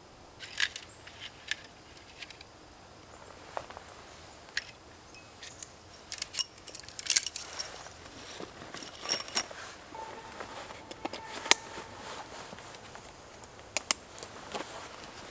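Camping gear being handled and packed: a scattering of sharp clicks and small metallic clinks, a few with a brief ring, over a faint outdoor background.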